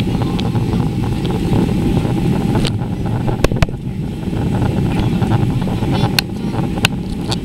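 Steady low rumble of engine and airflow noise inside the passenger cabin of an Airbus A330-200 climbing after takeoff. A few sharp clicks come about three and a half seconds in and again around six to seven seconds.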